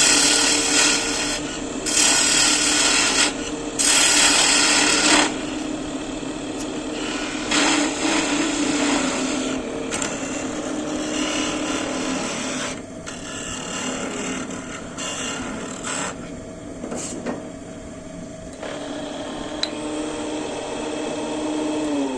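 Electric power tool cutting wood: a steady motor hum with several loud cutting passes in the first five seconds and lighter cutting after. Near the end the motor is switched off and winds down, its pitch falling.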